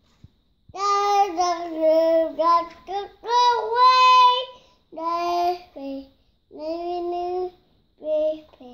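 A young child singing in a high voice, a string of held, wavering notes in about five short phrases with brief pauses between.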